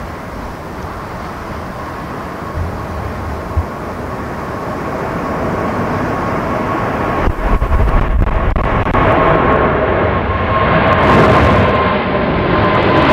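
Boeing 777's twin turbofan engines at take-off thrust as the jet climbs out overhead: a rumble that grows steadily louder, with a high whine coming in about halfway and sliding slightly lower near the end.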